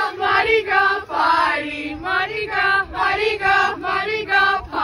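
A softball team's voices chanting a team cheer in unison: a quick, rhythmic run of short syllables on a fairly steady pitch.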